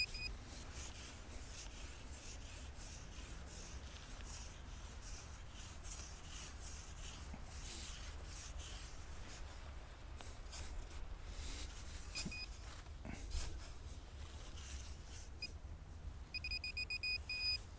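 A hand trowel scraping and digging into beach sand, with wind rumbling on the microphone. A metal detector pinpointer gives short beeps about twelve seconds in, then beeps rapidly near the end as it closes in on a buried metal target.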